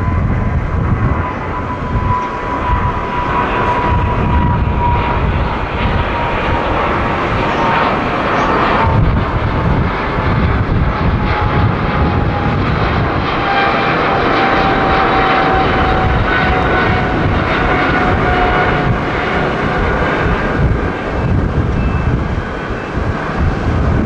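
Boeing 777 jet airliner's two turbofan engines at takeoff thrust as it climbs out: a steady roar with a whining tone that slowly falls in pitch as the aircraft moves away.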